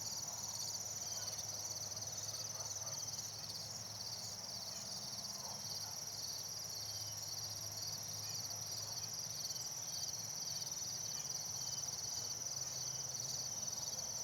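Steady chorus of trilling insects: a continuous high-pitched trill with a regular pulsing beat.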